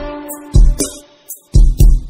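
Background music with a heavy drum beat of deep kicks and sharp hi-hat-like hits. A held melodic note stops about half a second in, and the beat drops out briefly before coming back near the end.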